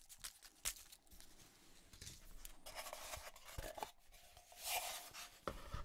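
Heavy cardboard packaging being handled: a few light taps at first, then cardboard rubbing and scraping, loudest about three-quarters through, with a knock near the end.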